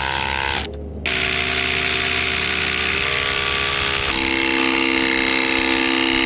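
Ryobi cordless impact driver driving 8-inch lag screws into log timbers, running in a long steady burst. It stops briefly just before a second in, then runs again, its pitch dropping in steps about three and four seconds in as the screw bites deeper and the load rises.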